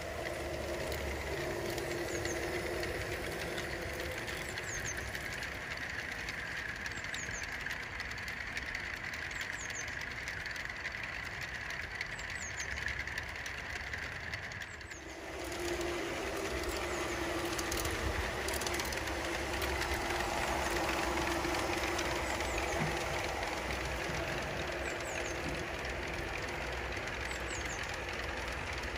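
G-scale model train running on garden track: a steady hum of motor and gears with wheel noise on the rails. The sound dips briefly about halfway through, then carries on.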